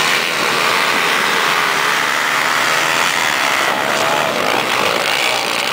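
A pack of motocross bikes racing, their engines revving together in a loud, steady buzz with individual bikes rising and falling in pitch.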